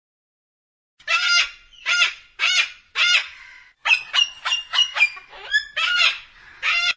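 A bird calling over and over: about a second in, a few spaced calls begin, then a quicker run of shorter calls, then two more spaced ones.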